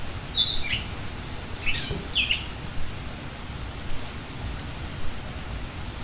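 A bird chirping, with a cluster of short high chirps in the first couple of seconds and a faint one later, over steady rain.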